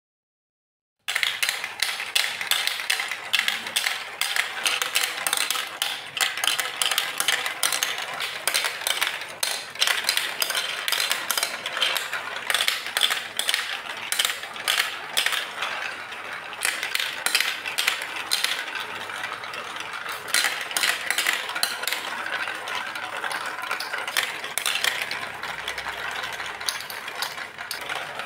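Plastic balls rolling and clattering down the plastic chutes, funnel and curves of a building-block marble run: a dense, continuous stream of clicks and rattles that starts suddenly about a second in.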